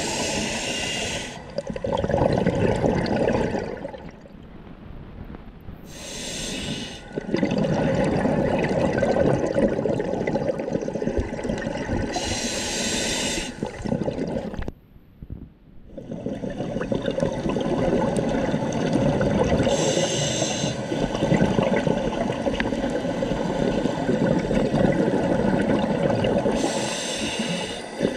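Scuba diver breathing through a regulator underwater: a short hissing inhalation about every seven seconds, five in all, each followed by a long rumbling gurgle of exhaled bubbles.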